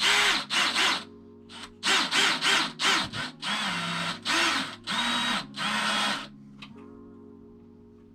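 Power drill driving screws in a series of short trigger bursts, the motor whirring up and slowing down with each. Steady background music under it.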